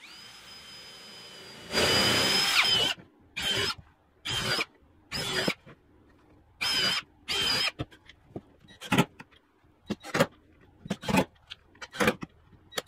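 Cordless drill with a countersink bit boring countersinks into plywood: a high whine as it spins free, then a loud burst and about five shorter bursts as it cuts. From about nine seconds in, a quick run of very short trigger bursts as a second cordless drill drives screws into the countersunk holes.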